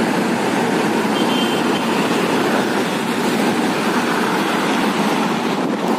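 Steady rushing noise of outdoor city ambience, an even wash of sound with no distinct events.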